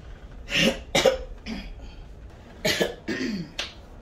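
A woman coughing in two short fits, the first about half a second in and the second near three seconds. The cough is an early symptom of a COVID-19 infection.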